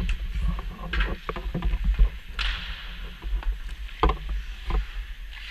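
Ice skate blades scraping and gliding on ice in long strokes, with scattered knocks and clicks of hockey gear over a steady low rumble.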